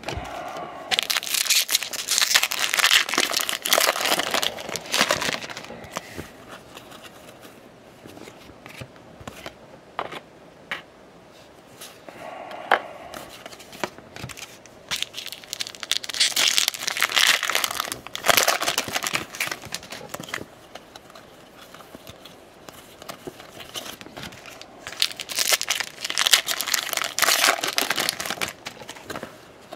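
Baseball card pack wrappers crinkling and tearing as packs are opened, in three bursts of a few seconds each, with soft clicks of cards being handled in between.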